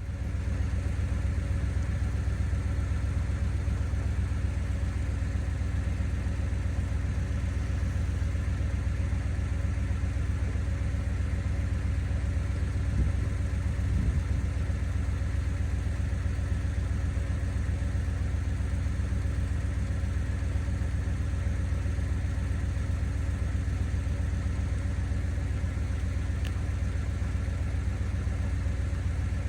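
Steady motor hum over a deep low rumble, with several fixed tones held unchanged throughout.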